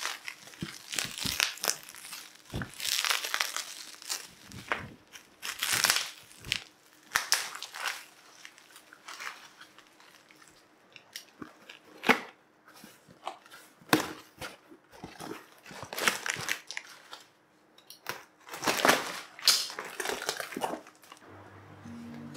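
Irregular bursts of crinkling, rustling and crunching as a potted anthurium is handled during repotting, with a quieter stretch in the middle.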